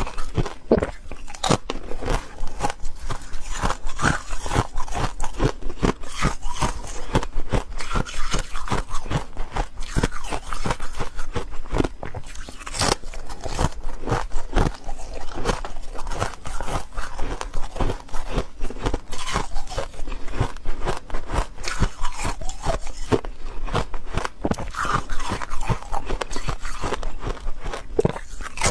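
Close-miked biting and chewing of hard frozen ice: a dense run of crisp, irregular crunches, with one sharper crack about halfway through.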